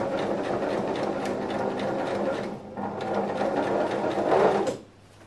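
Electric sewing machine stitching a seam through fabric, running steadily with a brief pause about two and a half seconds in, then stopping shortly before the end.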